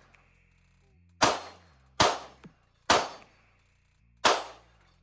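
Four pistol shots from a Sig Sauer P320, the first three less than a second apart and the last after a slightly longer pause. Quiet background music runs underneath.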